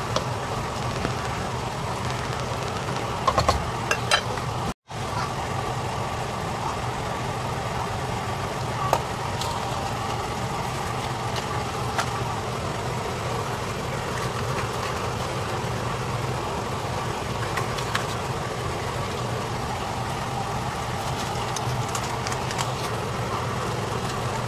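Steady low kitchen hum, with a few light clicks of a utensil against the pan as the simmering ground-pork and tomato mixture is stirred. The sound drops out briefly about five seconds in.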